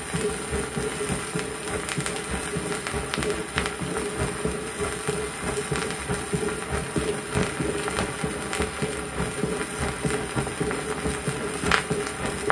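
Recorded heartbeat with the diastolic murmur of aortic valve insufficiency: a soft, blowing murmur that starts with the second heart sound and fades toward the end of diastole. It plays from a shellac 78 rpm record, under steady surface hiss and crackle, with a sharper pop near the end.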